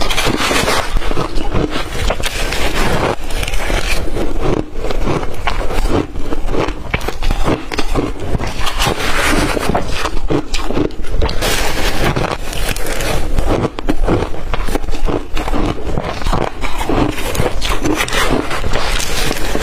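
Blender-crushed ice being bitten and chewed close to the microphone: a dense, unbroken run of crisp crunches.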